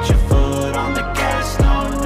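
Background hip hop/R&B music with a steady beat and heavy bass drum hits.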